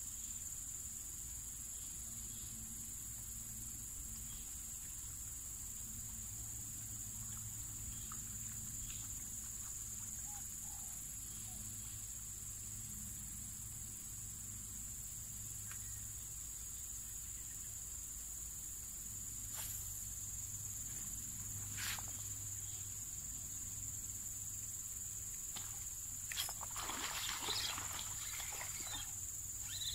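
Steady, high-pitched drone of insects. A couple of sharp clicks come in the second half, and a short burst of rustling and clicking comes near the end.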